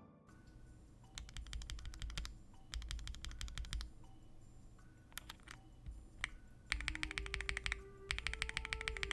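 Typing on a Weikav D75 mechanical keyboard with Bsun Apple linear switches in an FR4 plate and GMK Norse keycaps. The key clacks come in fast runs, in about six bursts with short pauses between them.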